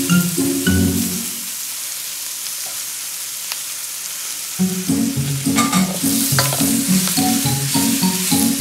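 Bok choy sizzling as it stir-fries in a hot stainless steel pan, turned with a spatula. A background music tune plays over it, dropping out for about three seconds in the middle, when only the sizzle is heard.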